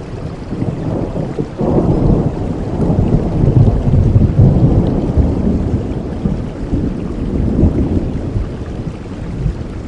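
Steady rain with a long, low rumble of thunder that swells about a second and a half in, peaks midway and slowly fades toward the end.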